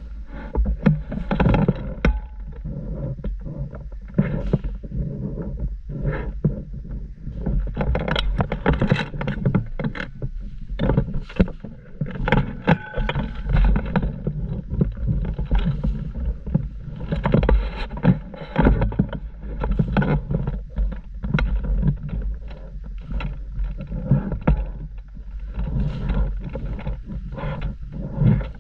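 Irregular rustling and knocking over a steady low rumble.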